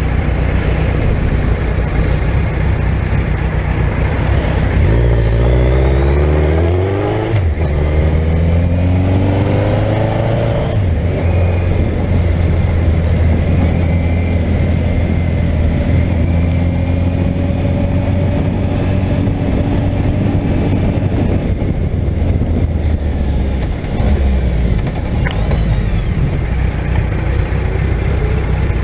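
Suzuki GSX1400's inline-four engine running under way, heard from on the bike with wind and road noise. The revs climb about five to seven seconds in, drop at a gear change, then hold fairly steady.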